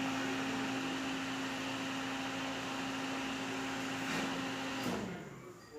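Microwave oven cooling-fan motor running with a steady hum and rush of air, its bearing freshly shimmed so the earlier noise is gone. About five seconds in, the hum drops in pitch as the motor winds down.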